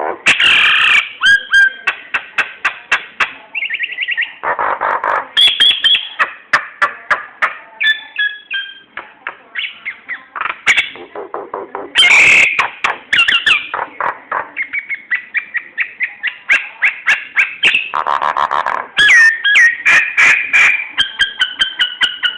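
Jalak nias, a starling-family songbird, singing a fast, varied song: quick runs of repeated chattering notes mixed with whistled glides and a few harsh squawks, broken by short pauses.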